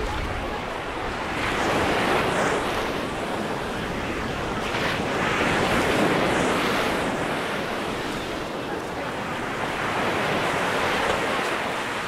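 Small Mediterranean waves washing onto a sandy beach, swelling and fading three times, with wind on the microphone.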